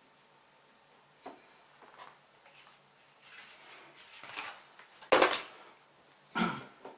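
Hands handling drone parts and packaging: a few light clicks and rustles, then a loud knock or clatter about five seconds in and another just before the end.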